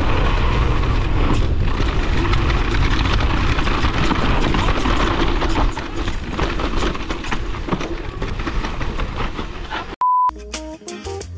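Mountain bike being ridden down a trail: a steady rushing, rumbling riding noise with small knocks for about ten seconds. It then cuts off abruptly, a short steady beep sounds, and music begins.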